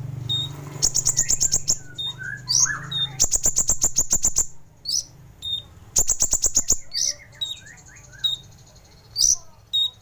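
Kolibri ninja sunbird singing a sharp, high song: rapid trills of clicking notes in bursts of about a second, three times, with short upward-swept chirps between them.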